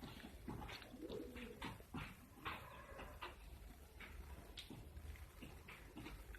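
A bird cooing softly, a faint low coo about a second in, with scattered faint clicks.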